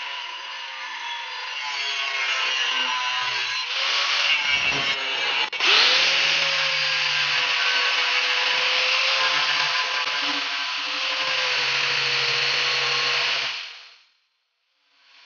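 Angle grinder with an abrasive disc grinding the edge of a steel circular saw blade, a steady motor whine under a harsh grinding hiss. About five seconds in the sound breaks off suddenly and the whine climbs back to speed, and it stops abruptly near the end.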